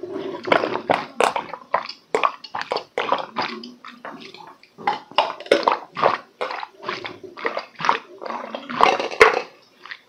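A person chugging a glass of iced drink in one go: a close, rapid run of gulps and swallows, about three a second, with a short lull partway through and a sharp click near the end.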